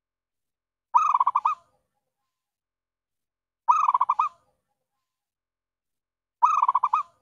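Zebra dove (perkutut) cooing as a trapping lure call: three short calls, each a quick staccato run of coos, repeating about every three seconds.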